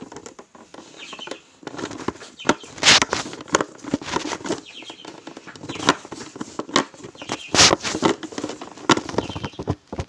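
A lovebird fluttering its wings in irregular bursts while perched on a hand and fed from a syringe, with scattered clicks and knocks; the bursts are loudest about three seconds in and again near eight seconds.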